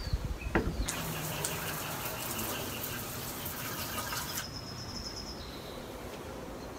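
Garden hose spray nozzle spraying water onto the sandpaper for about three and a half seconds, cutting off sharply.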